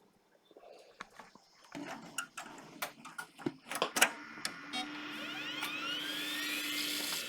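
Several sharp clicks and knocks of handling, then a desktop PC powering up: a steady hum and rising hiss of fan noise, with whines rising in pitch as the drives spin up. It cuts off suddenly at the end.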